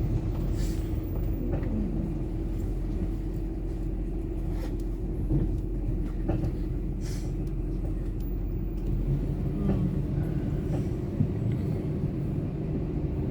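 Car driving, a steady low rumble of engine and road heard from inside the cabin.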